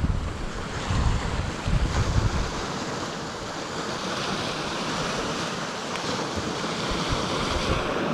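Wind buffeting the microphone in gusts over the first couple of seconds, with a steady hiss of surf breaking on the shore.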